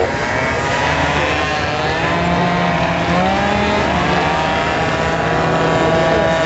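Scooter engine running at high revs. Its pitch climbs slowly, then holds steady near the end.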